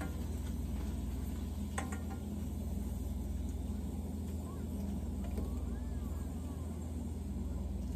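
Food frying in a wok as it is stirred with a spatula: faint sizzling over a steady low hum, with one sharp tap of the utensil on the pan about two seconds in.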